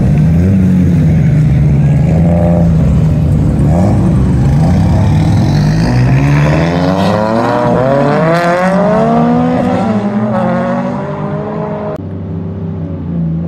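Drift cars' engines revving hard as they slide past close by, the pitch bouncing up and down; from about halfway several engines sound at once, their notes rising and falling past one another. Near the end it switches abruptly to a quieter, steadier engine heard from inside a car's cabin.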